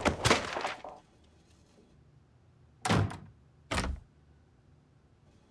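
Quick footsteps clattering at the start, then a wooden door shut hard with a heavy thump about three seconds in, followed by a second, slightly softer thump just under a second later.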